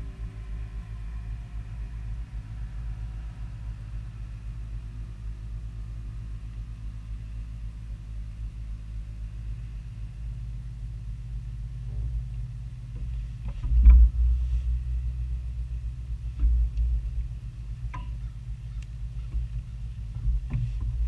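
Steady low hum and rumble of a bass boat's electric trolling motor, with faint steady whining tones in the first few seconds. From about 12 s in come scattered knocks and clicks of rods and gear in the boat, the loudest a thump about 14 s in.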